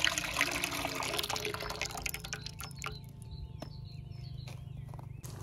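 Thick green plum pulp and juice splashing and pouring into a metal pot; the pouring stops about halfway through. Birds chirp afterwards.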